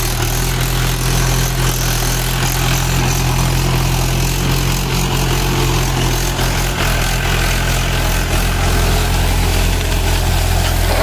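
Mahindra 575 DI tractor's four-cylinder diesel engine running steadily at low speed, pulling a 14-disc harrow, heard close up.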